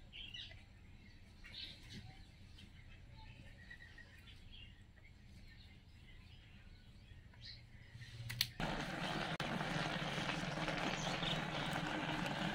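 Faint bird chirps over quiet surroundings. About eight seconds in, a sudden cut brings a loud, steady rush of a pot of rice boiling hard over a straw fire in a mud chulha (clay stove).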